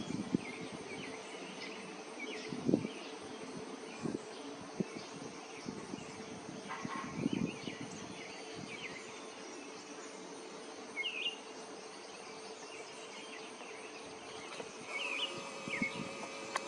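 Hummingbirds at a feeder: buzzing wings with many short, high chirps and a few soft knocks.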